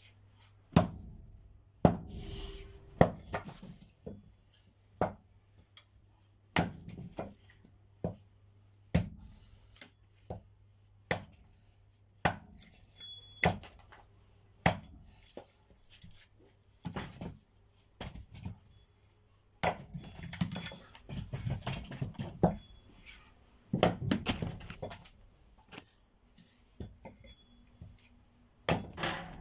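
Firewood being split: sharp chopping blows land about once a second, with a stretch of quicker knocking and clattering wood about two-thirds of the way through.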